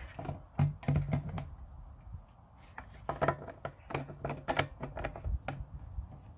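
Handling noise from a fabric Aqua Roll insulation bag and the hose inside it being pulled out: irregular rustles, scuffs and sharp clicks, in a cluster around the first second and again from about three seconds in.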